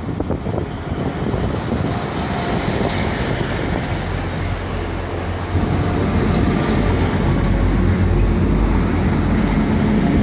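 Class 175 diesel multiple unit running past close along the platform: drone of its underfloor diesel engines with rumble from the wheels and running gear. It gets louder about five and a half seconds in as a powered car comes alongside.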